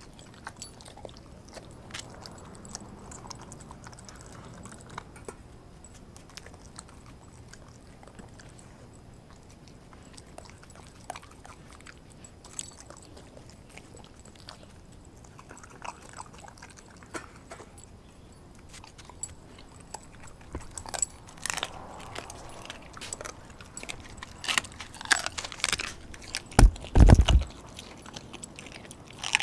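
A dog biting and chewing raw meat, with soft wet crunches and clicks of teeth and the jingle of its collar tag, sparse at first and busier in the last third. Near the end there is one heavy low thump.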